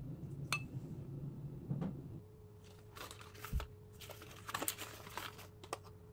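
Crinkling and rustling of a clear plastic packaging tray and cardboard box being handled and pulled apart, in a cluster of scratchy bursts through the second half, with a few light clicks. A low hum runs underneath and stops about two seconds in.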